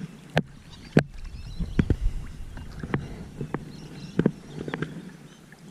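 Irregular sharp knocks and taps on a kayak, about eight over a few seconds, over low water and background noise.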